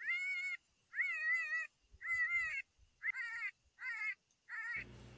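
A series of six high, wavering animal cries, each about half a second long and coming about once a second. A low rumbling noise starts near the end.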